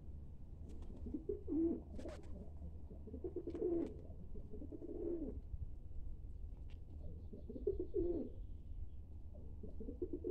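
Rock pigeons cooing: low, throaty phrases repeating every couple of seconds, with a few sharp clicks between them.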